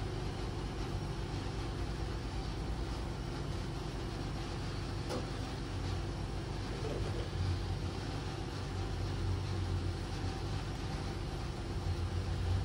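A steady low mechanical hum, with one faint click about five seconds in.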